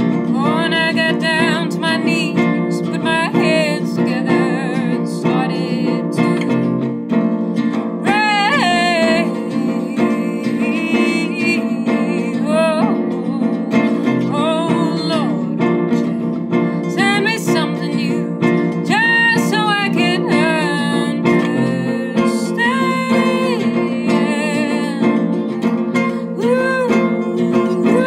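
A woman singing in phrases with vibrato, accompanied by a classical guitar.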